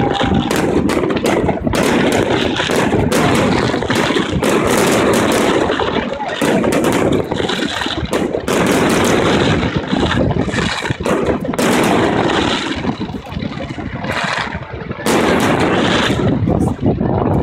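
Fireworks display: a rapid, near-continuous barrage of aerial shell bursts and crackling, with a couple of short lulls in the second half.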